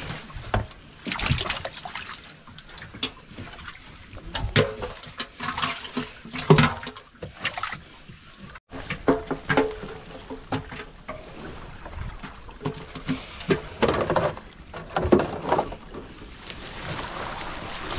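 Water splashing and trickling in uneven short strokes.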